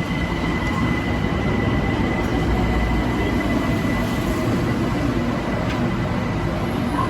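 BTS Skytrain electric train running with a steady rumble, and a thin high whine that fades out about halfway through.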